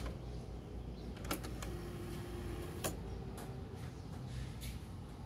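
Cassette deck of a National RX-CW50 radio-cassette player fast-winding a tape: a key clack at the very start, then a steady low whir of the motor and reels, with a couple of faint ticks. The wind is a test of whether the deck reaches auto stop at the tape's end.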